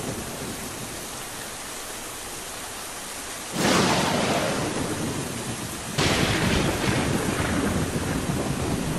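Rain-and-thunder sound effect: steady rain hiss, with a loud clap of thunder about a third of the way in that slowly rolls away, and a second clap about two-thirds in.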